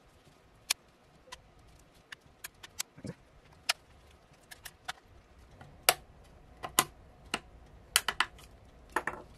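Sharp, irregular plastic clicks and snaps as a metal pry tool works around the seam of a Seagate external hard drive's plastic enclosure, releasing its snap-fit clips. The clicks come more often and louder in the second half.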